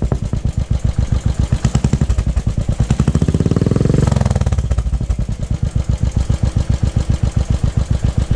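Royal Enfield Classic 500's single-cylinder engine running at idle through a newly fitted aftermarket chrome exhaust, an even, fast beat of exhaust pulses. About three seconds in, the throttle is blipped once: the beat quickens and rises, then drops back to idle just after four seconds.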